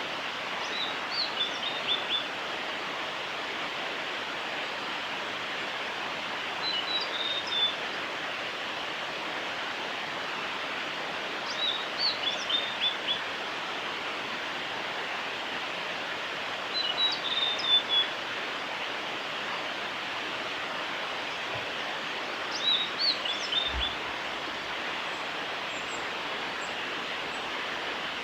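Male blue-and-white flycatcher singing: five short phrases of quick, clear whistled notes, one about every five seconds, over a steady rushing background noise.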